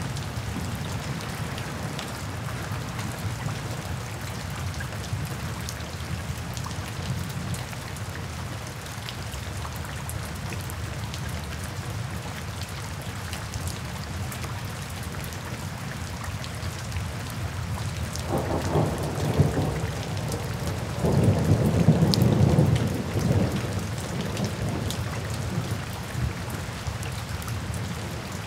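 Steady rain falling, with thunder rumbling twice in the last third, the second roll louder and longer.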